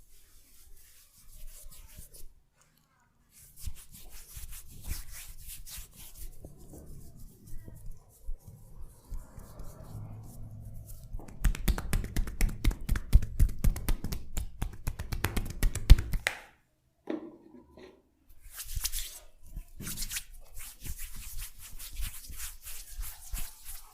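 Hands massaging with oil: irregular rubbing and crackling strokes, then from about halfway a run of quick rhythmic tapping strikes, several a second for about five seconds, before the rubbing resumes.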